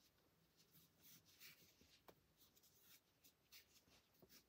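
Near silence with faint, irregular soft scratches and ticks of a crochet hook drawing cotton yarn through stitches.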